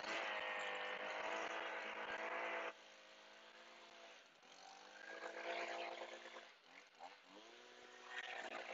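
Stihl BG 50 handheld two-stroke leaf blower at full throttle for nearly three seconds, then dropping to idle. It is revved up again twice, its pitch rising each time.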